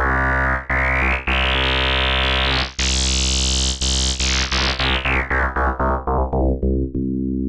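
Synthesized bass notes played over and over, the tone sweeping from mellow to very bright and buzzy about three to four seconds in, then mellowing back down, as the Macro 1 knob morphs the waveform from sine toward square and raises the phase modulation.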